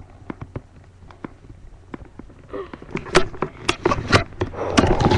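Scattered sharp clicks and knocks, sparse at first, then coming faster and louder over the last two seconds or so.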